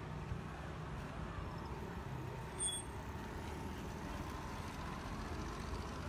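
Steady low engine rumble of road vehicles, with a small step-through motorcycle riding past close by. A brief high-pitched chirp sounds once, a little under halfway through.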